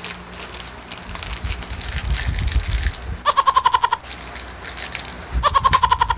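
A goat bleating twice, each a quavering call under a second long, about three seconds in and again near the end.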